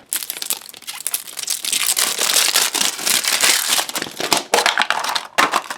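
Plastic candy packaging crinkling as it is handled and opened: a dense, continuous crackle with two short breaks near the end.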